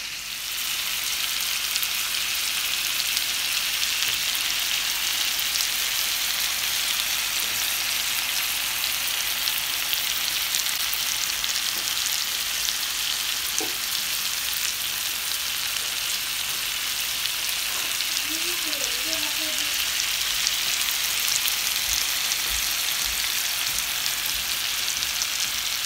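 Marinated chicken legs sizzling steadily in hot oil and butter in a cast-iron frying pan, with fine, dense crackling, as the first side sears undisturbed over a low-to-medium gas flame.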